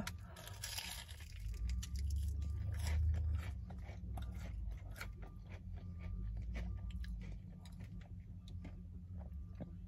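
Close-up chewing of a cheeseburger, with many small crunching and smacking clicks. Behind it a truck outside goes by with a low engine rumble, loudest about three seconds in, along with faint short repeated beeps.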